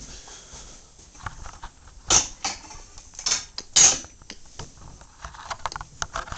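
Handling noise from the camera being picked up and moved: a string of knocks, clicks and rubbing, the loudest knocks near the middle.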